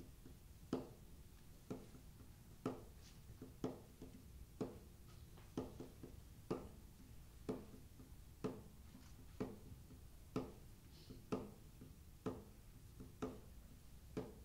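Sharp taps at a slow, steady beat of about one a second, each followed by a brief low ring, with softer taps falling between them.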